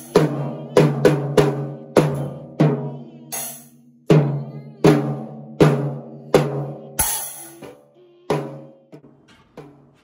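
Drum kit played by a young child: slow, uneven hits on the drums, each left ringing, with a cymbal crash a few times. The hits grow softer over the last couple of seconds.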